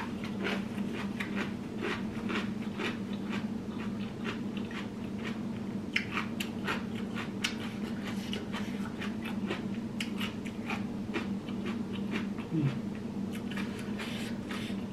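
Close-miked chewing and mouth sounds of a person eating, a run of small irregular wet clicks and smacks, over a steady low hum.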